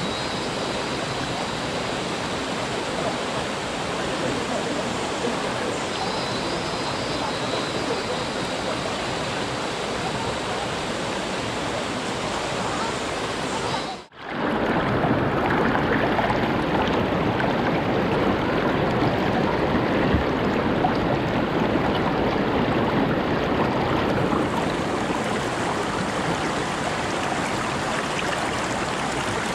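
Shallow rocky river rushing and splashing over stones and boulders close to the microphone, a steady full-range rush. It drops out briefly about halfway through and comes back somewhat louder.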